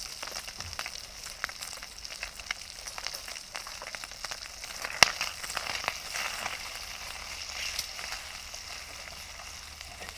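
Chunks of meat sizzling and crackling in hot oil in a frying pan, with a sharp click about halfway through as a fork works the pieces.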